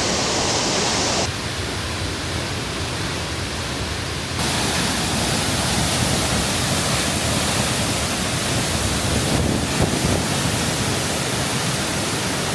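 Steady rushing of a waterfall, the even roar of falling water, which shifts abruptly in tone about a second in and again about four seconds in.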